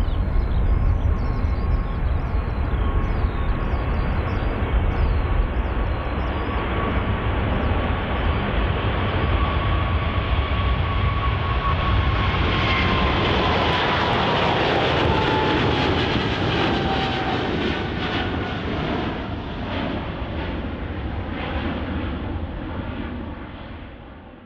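Boeing 777-300ER's GE90 jet engines at takeoff thrust: a steady loud rush with a fan whine that falls in pitch about halfway through as the jet passes, then crackling exhaust that fades near the end.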